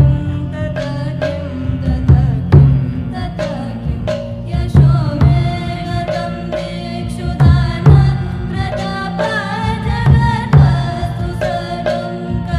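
Devotional song: a melody sung over a hand-drum rhythm of deep, repeated drum strokes.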